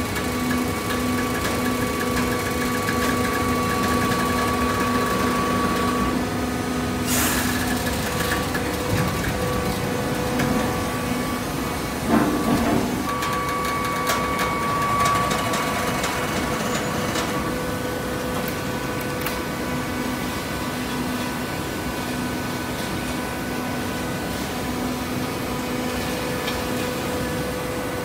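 Hydraulic baler running with a steady mechanical hum, with a sharp clatter about seven seconds in and a louder knock about twelve seconds in.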